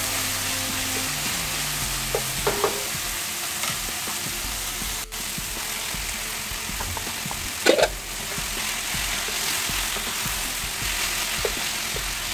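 Vegetables sizzling in a hot oiled wok as they are stir-fried with a wooden spatula, a steady frying hiss. A few short clatters of the spatula and vegetables against the pan, the loudest about two-thirds of the way through, over soft background music.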